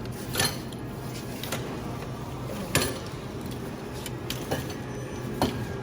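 Steady store background noise with a low hum, broken by a handful of sharp clinks and knocks. Three are louder: shortly after the start, about halfway through, and near the end.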